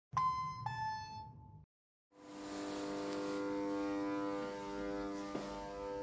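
A two-note ding-dong chime, the second note lower, over the first second and a half. After a brief silence, a steady hum with many overtones sets in about two seconds in, with a faint click near the end.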